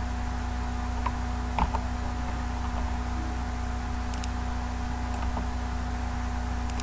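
A few scattered computer keyboard keystrokes, short sharp clicks a second or more apart, over a steady low electrical hum.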